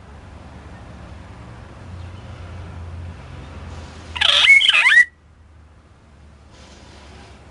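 Pet talking bird giving one loud, short squawking whistle with quick rising and falling pitch glides, about four seconds in. A low steady hum lies underneath.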